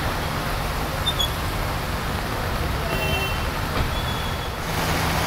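Steady rumble of engines and road traffic mixed with the hiss of rain and water, with a few short high beeps. A steady low hum comes in near the end.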